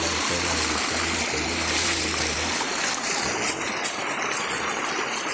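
Stream water rushing steadily down the rocks at a waterfall, an even hiss of flowing water.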